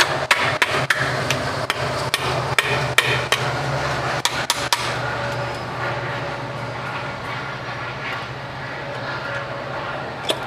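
Repeated sharp metal taps, about two to three a second for the first five seconds and one more near the end, as the crankcase side cover of a GK100 petrol-kerosene engine is knocked loose from the block. A steady low hum runs underneath.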